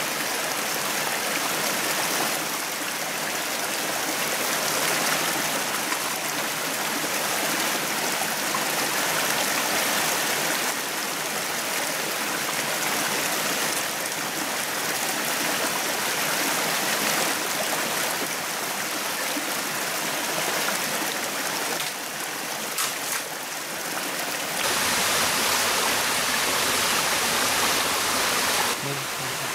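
Steady rushing of a rocky forest stream, water running over stones, growing fuller and a little louder near the end, with a couple of faint clicks just before.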